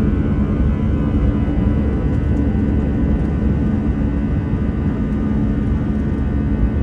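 Cabin of an Airbus A320-214 at takeoff thrust through the takeoff run and liftoff, heard from a window seat over the wing: its CFM56-5B turbofan engines give a steady, loud roar with a low hum.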